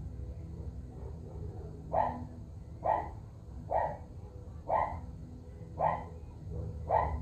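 A dog barking repeatedly, six short barks about a second apart, starting about two seconds in.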